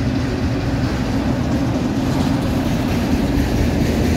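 Autorack freight cars of a CSX train rolling past on the rails: a steady rumble of steel wheels on track, with a steady low hum under it.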